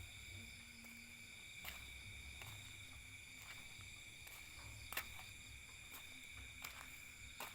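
Faint steady chorus of insects, a shrill even drone of several held high tones, with a few sharp clicks scattered through it and a low rumble underneath.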